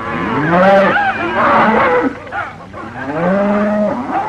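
A herd of cattle lowing and bellowing as it is driven, many overlapping moos that rise in pitch and then hold.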